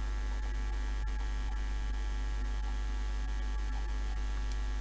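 Steady electrical mains hum in the recording: a low, unchanging drone with faint buzzing overtones above it.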